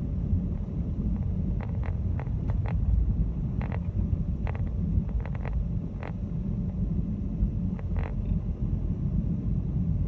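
Car driving on a snow- and ice-covered road, heard inside the cabin: a steady low road and engine rumble, with scattered light clicks.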